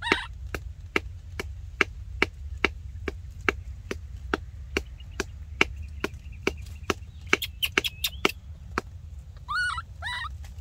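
Steady rhythmic chopping, sharp strikes about two to three a second, stopping about nine seconds in. A few short high squeaky calls come through near the end.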